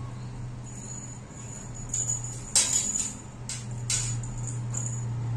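Cat toy on a metal bead chain jingling and rattling on a tile floor as kittens bat it, with two sharp clicks in the middle, the second about a second after the first.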